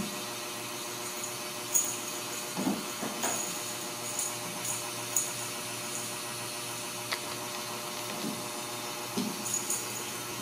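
Steady electric whir of room appliances, with scattered light ticks and taps from Ragdoll kittens scampering and pouncing on a tile floor.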